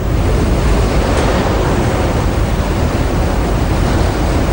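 Tornado wind blowing hard: a loud, steady rushing noise, heaviest in the low end.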